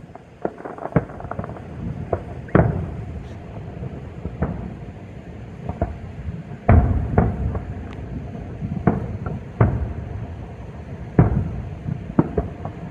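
Aerial fireworks shells bursting one after another at irregular intervals: sharp bangs and cracks over a low, continuous rumble of booms, the loudest bangs about seven and eleven seconds in.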